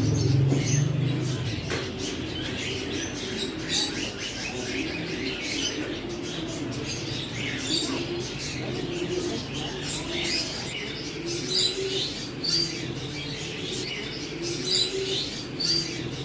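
Birds calling: a loud low call that ends about a second and a half in, then steady low cooing, broken by short, sharp high chirps, several of them loud near the end.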